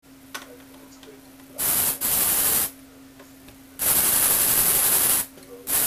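Motor and gear train of a motorized Lego Technic 42007 Moto Cross Bike running in four short bursts, a harsh rattling hiss that switches on and off abruptly, the longest about a second and a half.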